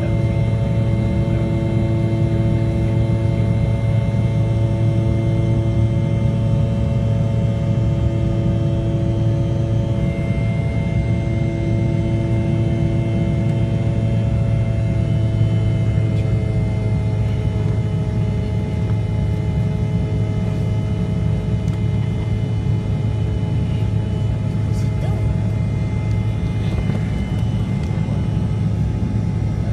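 Jet airliner cabin noise during the climb after takeoff: a steady low roar of the engines and airflow with several steady whining tones on top. About halfway through, some of the tones shift slightly in pitch.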